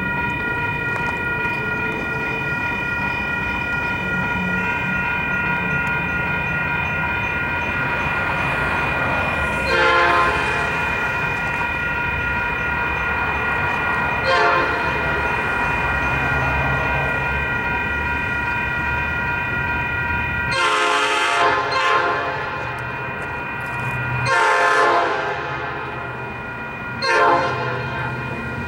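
Amtrak train leaving with its horn sounding over a steady rumble and several held tones. There are two brief blasts around ten and fourteen seconds in, then a long, a long and a short blast near the end, the pattern of a grade-crossing horn signal.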